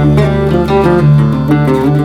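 Background music: acoustic guitar playing plucked and strummed notes over a steady bass line.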